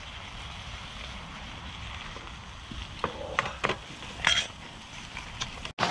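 Food frying in pans on a campfire griddle, a steady sizzle, with a few metal clinks of pans and utensils between about three and four and a half seconds in.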